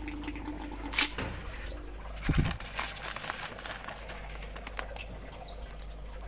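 Coarse salt tipped from a plastic spoon into a plastic hatching bottle, with a sharp click about a second in and a low thump a little after two seconds, then light scattered ticks as the spoon scoops more salt from its bag, over a steady low hum.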